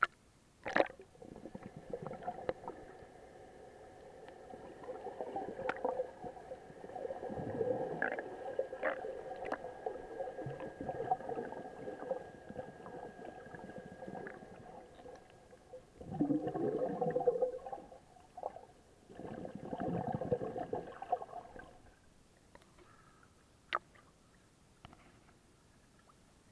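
Seawater sloshing and gurgling around an action camera's waterproof housing as it bobs at and under the surface, heard muffled through the case, with a sharp knock about a second in. A steady hum runs underneath, and louder gurgling swells come three times before it goes quiet.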